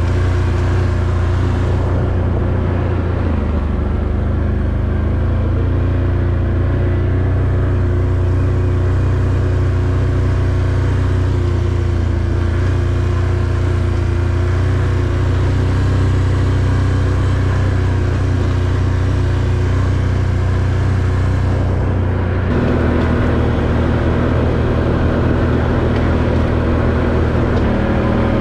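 ATV engine running at a steady speed. Its pitch steps down about 22 seconds in.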